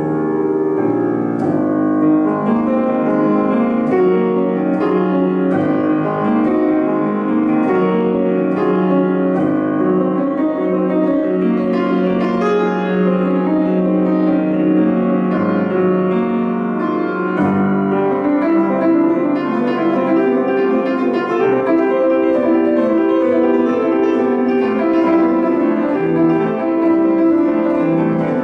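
Grand piano played solo: a classical piece in a steady stream of notes, with no break.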